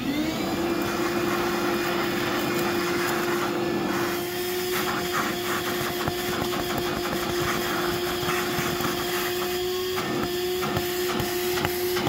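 DeWalt cordless wet/dry vacuum starting up and running steadily, sucking concrete dust out of a freshly drilled anchor hole through its hose nozzle.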